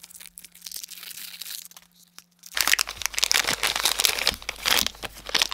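Foil blind-bag wrapper crinkling as it is handled and opened by hand, faint at first and then loud and dense about two and a half seconds in.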